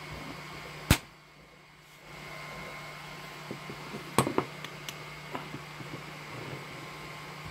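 Hard plastic handling: one sharp click about a second in, then a quick cluster of small clicks and taps around four seconds in, as a 3D-printed lithophane is set against its stand and a flashlight is brought in and switched on behind it. A steady low hum runs underneath.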